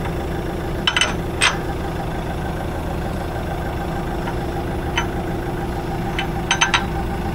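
Forklift engine idling steadily. Several short, sharp metal clinks sound over it: one about a second in, another shortly after, one midway and a quick group of three near the end.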